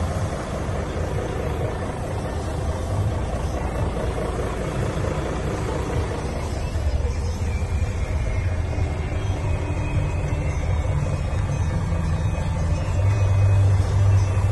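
Mercedes-Benz Actros 4341 truck's diesel engine idling, a steady low drone heard from inside the cab, growing louder near the end.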